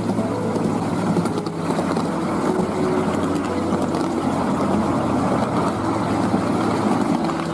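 7¼ in gauge miniature train running along the track: a steady, loud running noise of the wheels on the rails and the locomotive, heard from the moving train.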